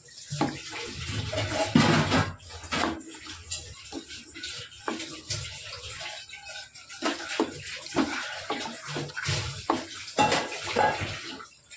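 Wooden spoon stirring thick, simmering chicken korma gravy in an aluminium kadai: wet stirring and sputtering of the masala, with irregular scrapes and knocks of the spoon against the pan.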